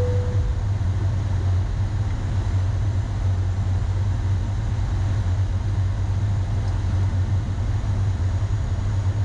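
Steady low rumble of airflow and engines inside a Boeing 737-800 cockpit on approach. In the first moment, the tail of a chime tone fades out.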